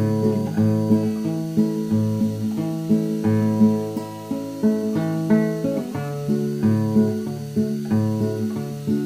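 Background music: acoustic guitar plucked and strummed in a steady rhythm.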